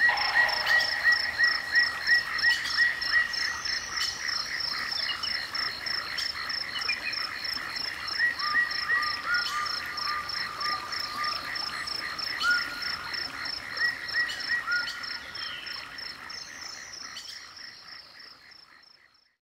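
A chorus of animal calls in a nature recording: several callers repeating short pulsed calls about three times a second, with another, lower caller joining about eight seconds in. The chorus fades out near the end.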